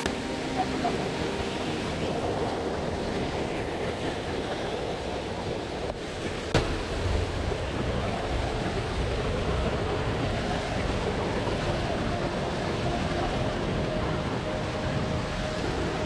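Steady rush of river water, with wind buffeting the microphone. There is a single sharp knock about six and a half seconds in, and the low wind rumble is stronger after it.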